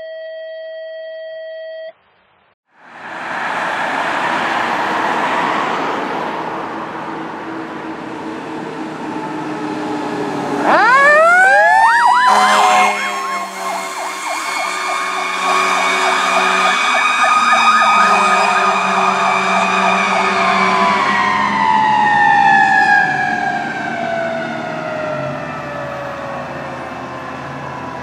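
A 1999 Pierce Saber fire engine passes with its engine and road noise. About a third of the way in its siren winds up sharply to a steady wail, holds, then slowly winds down in pitch over the last several seconds, the rise and long coast-down of a mechanical siren. A steady chime of tones sounds for the first two seconds.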